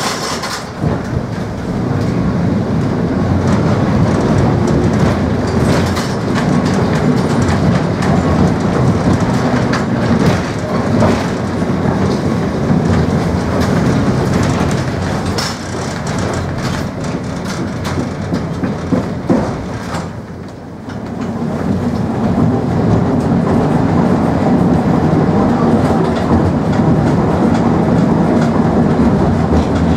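Cabin of an old four-wheel tram running along the track: steady running noise with wheels clattering over the rails. It drops briefly about twenty seconds in, then picks up again.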